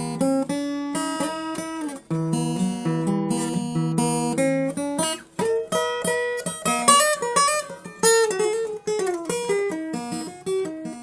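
Solo acoustic guitar playing an instrumental piece: ringing chords for the first few seconds, then a quicker run of single notes with slides about halfway through.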